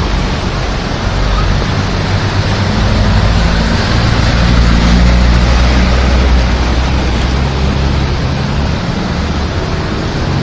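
Heavy rain falling steadily, with a motor vehicle's engine running close by, growing louder a few seconds in and easing toward the end.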